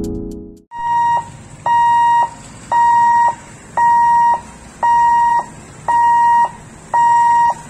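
Warning buzzer of an electric level-crossing boom barrier sounding while the booms move: seven steady, high-pitched beeps at about one a second.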